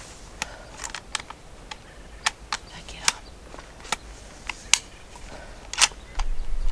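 A series of sharp, irregular clicks and taps close to the microphone, a few a second, with a low rumble of handling or wind near the end.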